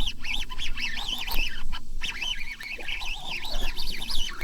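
Birds calling over and over, a quick run of short, high rising-and-falling calls several times a second, over a low rumble.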